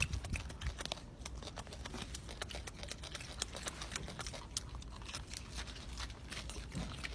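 Golden snub-nosed monkey chewing orange segments: faint, scattered wet clicks and smacks of its mouth, over a low steady rumble.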